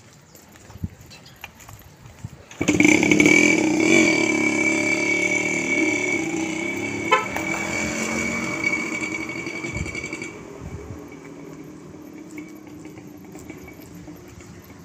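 A small engine comes in loud and sudden about two and a half seconds in, runs at a steady pitch, and fades out from about ten seconds on.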